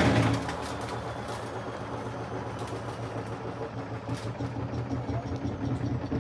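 Samsung washing machine loaded with heavy bricks running with a steady motor hum. It drops sharply in level shortly after the start, with a few faint knocks.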